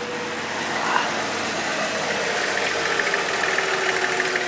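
Ford 4.9-liter straight-six engine of a 1993 F-150 idling steadily just after an oil change, with a fast, even ticking from about halfway in.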